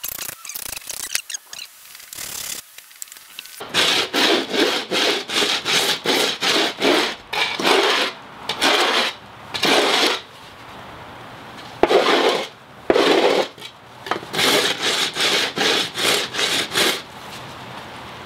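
Edge of a small wooden board scraped back and forth on a concrete floor, rubbing the rough cut edges smooth. The strokes come about two to three a second in several runs with short pauses, starting about four seconds in.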